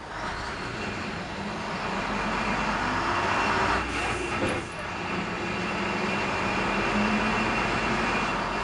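DAF MB200 city bus engine and road noise heard from inside the passenger cabin while the bus is moving. The noise builds over the first few seconds, dips briefly around the middle, then holds steady.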